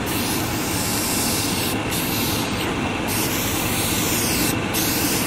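Aerosol spray-paint can hissing as paint is sprayed onto a van's hood, in long bursts with three short breaks between them, over a steady low rumble.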